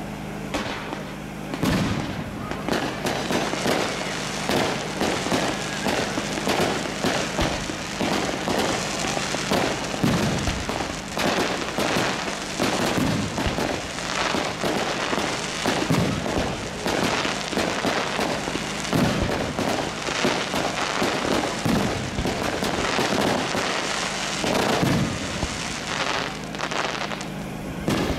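Aerial fireworks going off in rapid succession, a near-continuous run of bangs and crackling with heavier booms every few seconds. It starts after a quieter first second or two.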